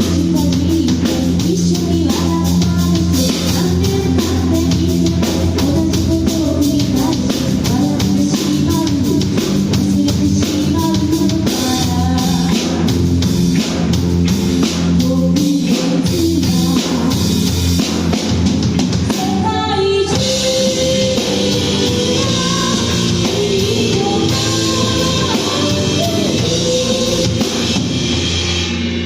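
Three-piece rock band playing loud live, with drum kit, guitar, bass and singing. About twenty seconds in, the cymbals come in heavily and wash over the rest.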